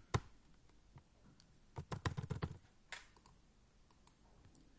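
Typing on a computer keyboard: a single keystroke near the start, a quick run of keystrokes about two seconds in, then a few separate clicks.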